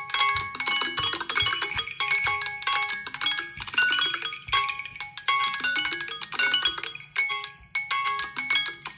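Samsung Galaxy phone alarm tone ringing: a quick melody of short, bright notes that start sharply and die away, the phrase repeating about every two and a half seconds.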